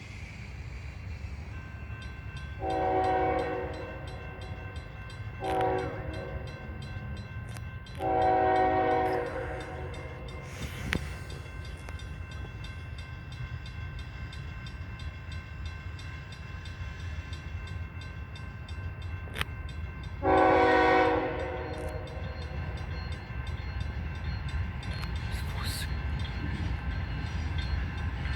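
A freight train locomotive's air horn sounds a series of chord blasts: a long one, a short one and a long one in the first ten seconds, then another long blast about twenty seconds in. The engine's steady low rumble runs underneath.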